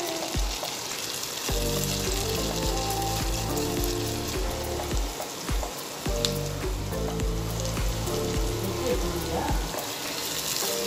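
Sliced onions sizzling steadily as they fry in a nonstick pan.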